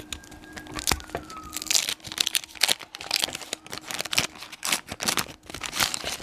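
Wax paper wrapper of a vintage Donruss baseball card pack being torn open and crinkled by hand as the cards are pulled out: a quick, irregular run of crackles and rips.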